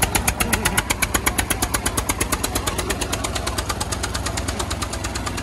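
Swaraj 825 tractor's single-cylinder diesel engine chugging with a fast, even beat of about nine thuds a second, with a second tractor engine running behind it. The tractors are tied by a rope for a tug-of-war, so the engines are running against each other under pull. The beat grows less distinct in the second half.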